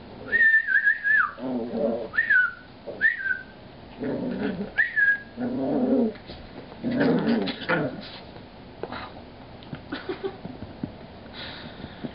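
Dog whining: a high, squeaky whine about a second long, then three short ones, with lower, rougher grumbling vocal sounds between and after them.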